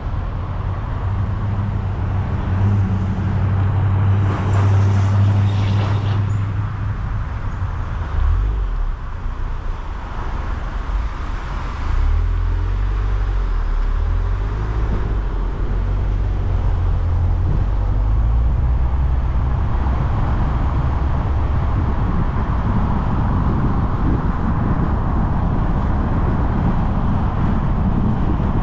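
Car driving on city streets: a steady low engine hum with tyre and road noise. It goes quieter for a few seconds near the middle, then picks up again.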